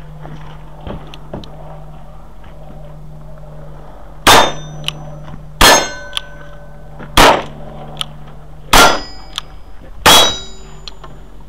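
Five shots from a single-action revolver, about one and a half seconds apart, each followed by the ringing of a struck steel target plate.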